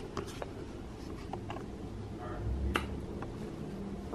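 A handful of short, sharp clicks from a compact digital camera being handled and fired at a mirror, the loudest a little under three seconds in, over a faint steady room hum.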